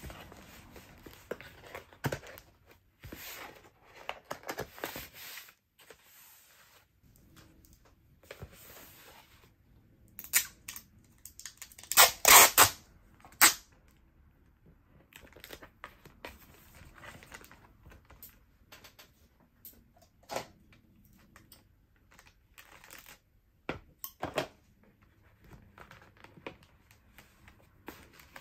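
Kraft cardboard mailer box being folded shut and pressed down by hand: scattered light rustles, scrapes and taps, with a short louder ripping sound about twelve seconds in.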